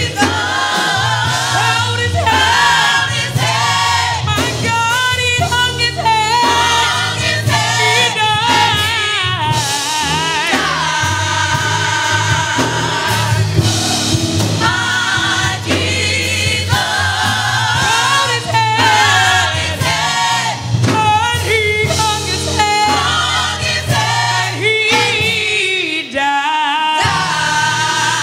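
Gospel choir singing, with long held notes that waver in pitch, over a steady bass accompaniment.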